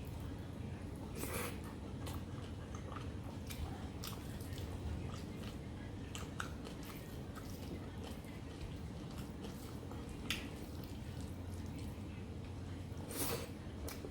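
Close-up chewing and wet mouth sounds of someone eating rice and mutton curry, with scattered small clicks and smacks, a couple of louder ones about a second in and near the end, over a steady low hum.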